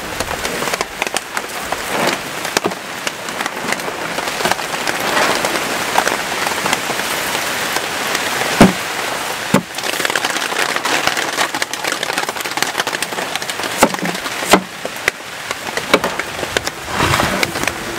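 Heavy rain falling steadily on a surface, a dense patter with scattered sharper taps of heavier drops, the loudest about halfway through.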